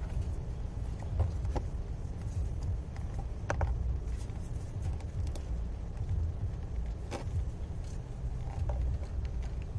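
Hands and tools working in a car's engine bay: scattered light clicks and taps over a steady low rumble.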